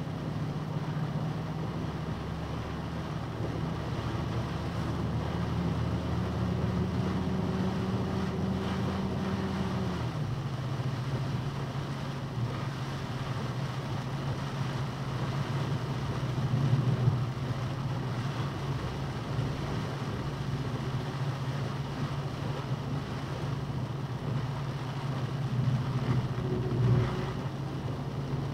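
Box truck engine heard from inside the cab while driving, over a steady hiss of rain and wet road. The engine tone climbs as the truck speeds up, then drops suddenly about ten seconds in as the transmission shifts up.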